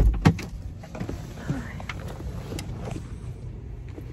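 A car door is opened from inside with a heavy clunk, then a sharp click, as someone climbs out. Scattered clicks and clothing and handling rustle follow over a steady low outdoor rumble.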